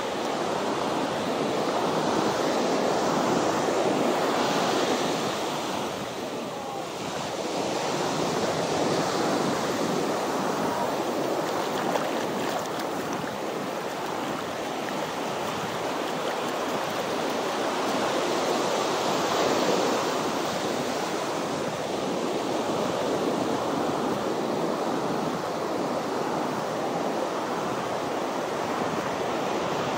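Ocean surf breaking and washing up on a beach: a steady rushing wash that swells and eases, with wind buffeting the microphone.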